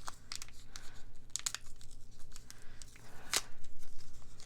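Plastic wrapping from miniature toys crinkling and tearing as the packaging is opened by hand, a series of short crackles with a louder rip about three and a half seconds in.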